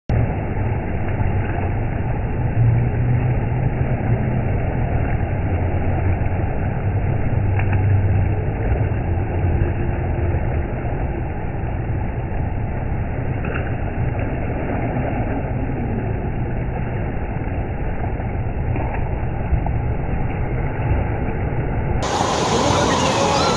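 Wave-pool noise of water and people, slowed down with slow-motion playback, so it is heard as a deep, muffled, steady rumble. About 22 seconds in it switches to normal-speed water and crowd noise.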